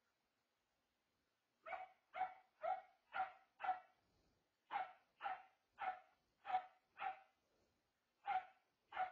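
A dog barking: twelve short barks in three runs, five at about two a second, then five more after a short break, then two near the end.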